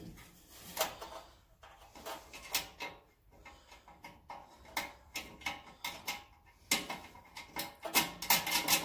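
Light, irregular metallic clicks and taps of a stainless steel screw and nut being handled against a diamond-plate metal tray and its mounting bracket as the nut is started by hand; the clicks come closer together and louder near the end.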